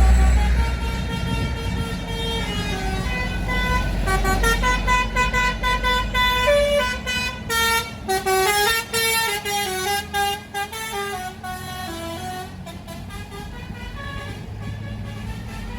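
A bus's basuri multi-tone musical horn plays a tune of quick stepped notes, one after another, over the low running of the bus's engine. The notes thin out and stop near the end.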